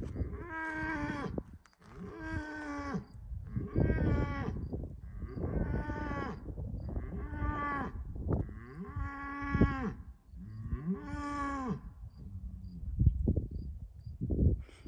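A cow mooing over and over, a long drawn-out moo every couple of seconds. Faint, regular cricket chirps sound in the gaps.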